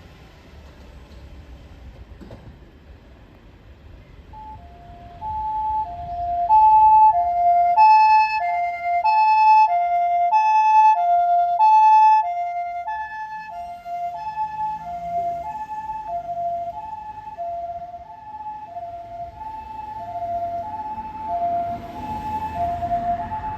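Japanese ambulance two-tone hi-lo siren, a steady alternation between two pitches about twice a second, starting about four seconds in. After about eight seconds at full volume it drops sharply and carries on much quieter, the switch to the ambulance's residential-area siren setting. A low vehicle rumble rises near the end.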